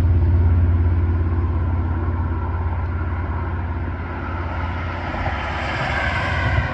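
A motor vehicle's engine running with a steady low rumble, with a rushing noise building in the last couple of seconds.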